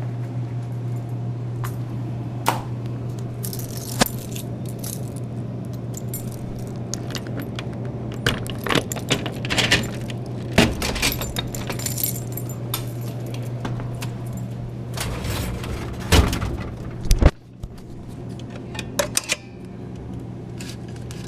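A bunch of keys jangling, with irregular metallic clicks and clinks over a steady low hum; a vending machine is being unlocked and opened for collection.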